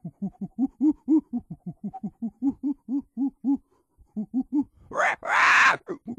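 Monkey calls: a fast run of low hoots, about five a second, a short pause, a few more hoots, then a loud harsh scream about five seconds in.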